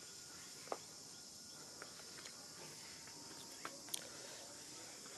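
Steady high-pitched chirring of insects, with a few short sharp clicks scattered through it.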